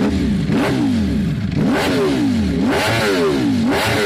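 Ducati V4 S motorcycle's V4 engine on its stock exhaust, revved from idle in about four quick throttle blips, each rising and falling in pitch.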